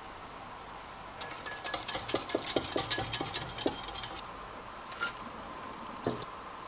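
Small wire whisk beating a garlic-and-oil salad dressing in a glass bowl: a quick run of clinks against the glass for about three seconds, then a few lighter knocks.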